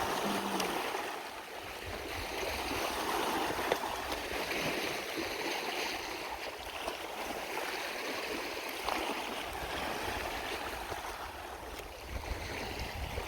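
Steady rush of water over a rocky shore near where a river meets Lake Superior.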